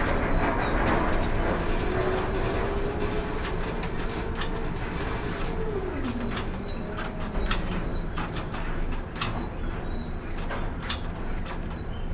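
Container quay crane machinery running with a steady low rumble. An electric drive whine rises as the trolley moves the empty spreader along, holds, then drops away about six seconds in as it slows and stops over the truck. Light clicks and ticks follow in the second half.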